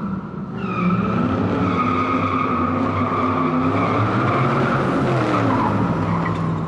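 Burnout sound effect: a car engine held at high revs with its tires squealing steadily. It swells about a second in, and the engine note drops around five seconds in.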